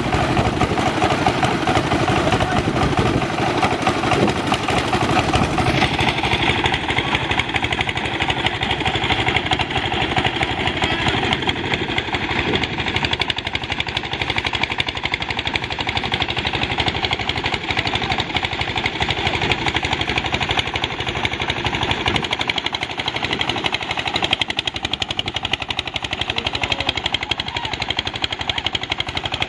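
Engine-driven rice threshing machine running steadily, the engine's drone overlaid with a fast, continuous rattle.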